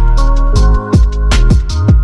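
Background electronic music with a deep bass line and a steady drum beat.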